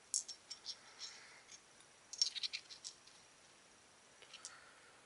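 Small metal coil-wrapping jigs clicking, scraping and rattling against each other as they are handled, a faint run of light clicks with the busiest cluster about two seconds in.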